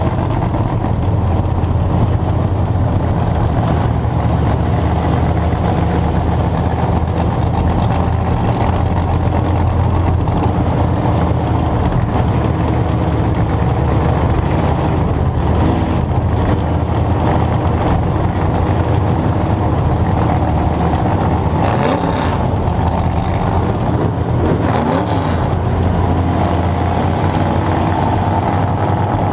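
Vintage dirt-track race car's engine, heard from a camera on its hood, running steadily and loudly among a pack of other race cars. There are a few brief rises and falls in engine pitch about 22 to 25 seconds in.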